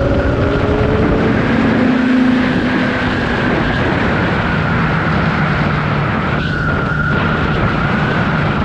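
Kawasaki Z1000R's inline-four engine, on its stock exhaust, running under way at speed. The engine note climbs slightly in the first second or two, then holds steady.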